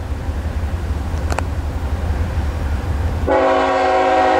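Freight locomotive air horn, a GE ET44AC leading a Norfolk Southern intermodal train, starting a steady blast of several tones together about three seconds in, over a low rumble.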